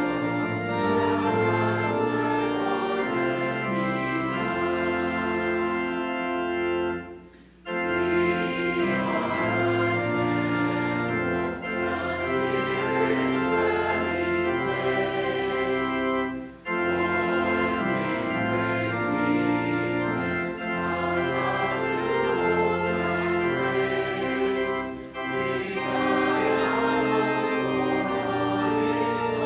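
Church organ playing slow, sustained chords over a moving bass line, with short breaks between phrases about every eight to nine seconds.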